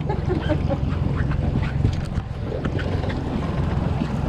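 Outboard motor running low in gear at trolling speed, with wind buffeting the microphone. A few short squeaks come in the first second.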